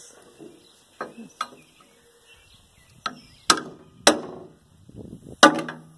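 Sharp metal clanks and knocks, about six spread over a few seconds, each ringing briefly: hand tools working the timing cover off a scrap car engine.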